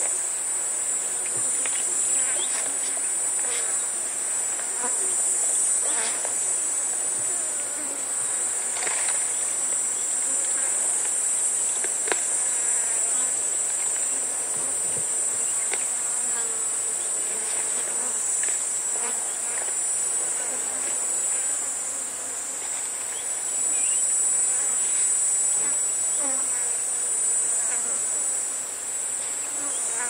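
Loud, steady, high-pitched cicada chorus with flies buzzing, over scattered short rustles and crunches of a giraffe stripping and chewing acacia leaves close by.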